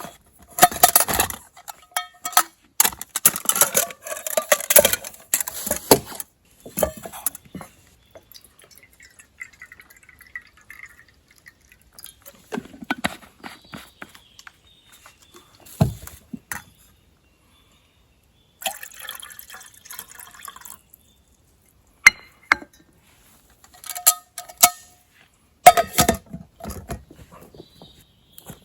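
Intermittent clinks, knocks and handling noises of camp cooking preparation, with liquid sounds among them. The busiest stretch is the first few seconds, and a few sharp knocks come near the end.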